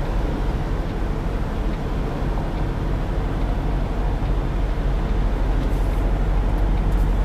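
Semi-truck's diesel engine running steadily at low idle, heard from inside the cab while the tractor-trailer creeps backward into a loading dock.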